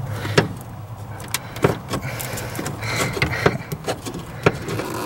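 Irregular clicks and knocks of plastic dash parts and a wiring connector being handled and worked loose behind a pickup's dashboard, over a steady low hum.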